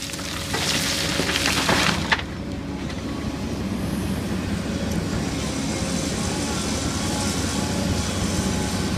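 Heavy diesel engines of a Kobelco 240 excavator and a CAT 725 articulated dump truck running steadily during loading. A rushing noise for the first two seconds ends in a sharp knock, then the engine hum carries on and rises slightly.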